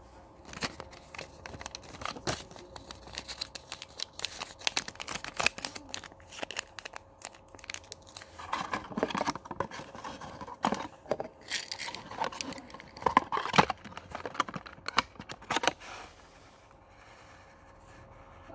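Paper package leaflet crinkling and crackling as it is folded and pushed into a small cardboard medicine box, a dense run of rustles with louder crackles in the middle, stopping a couple of seconds before the end.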